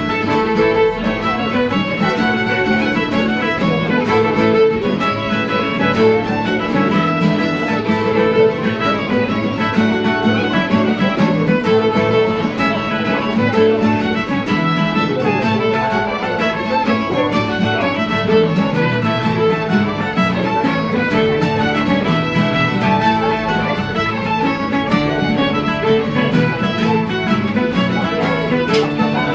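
Fiddle with guitar and resonator tenor guitar playing a lively pipe jig together, the bowed fiddle melody over strummed guitar accompaniment.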